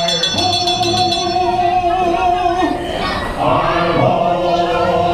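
The show scene's soundtrack from its speakers: a group of voices singing long held notes over music.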